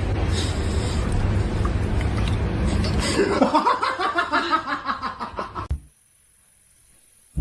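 A steady low rumble, then a person laughing from about three seconds in, the laughter pulsing and trailing off before the sound cuts away.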